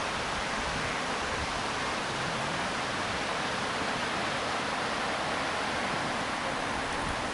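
Steady rush of water from a small waterfall spilling into a mountain pool.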